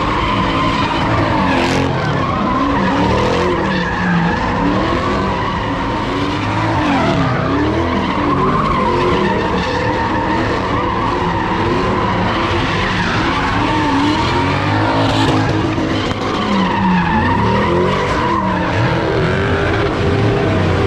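Cars doing donuts and burnouts: the tyres squeal without a break while the engines rev up and down over and over.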